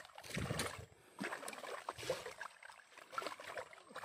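A hooked fish splashing and thrashing at the water's surface as it is played to the bank, in several irregular bursts.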